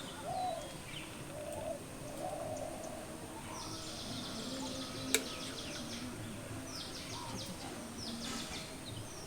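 Birds chirping in quick runs of short high notes over a steady outdoor background, with one sharp click about five seconds in.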